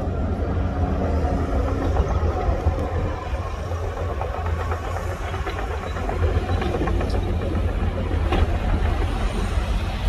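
Heavy diesel engine of earthmoving machinery running steadily with a deep, low rumble, with a few faint knocks about halfway through and later.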